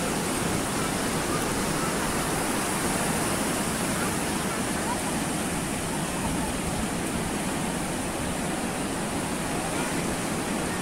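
Ocean waves breaking and washing up the shore, heard as a steady wash of noise.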